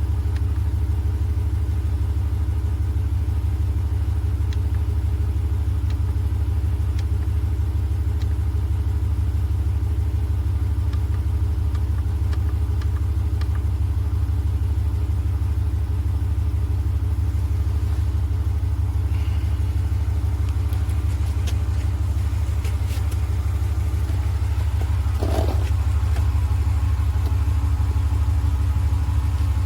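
Oasser 150 PSI portable air compressor running steadily: a continuous low hum from its motor and piston pump, with a few faint clicks in the second half.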